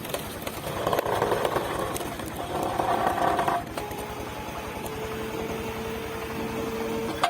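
Hydraulic wood splitter running: its motor chugs with a fast, even pulse, with a louder, rougher stretch in the first half as a log is worked, then a steady whine from the hydraulics over the last couple of seconds.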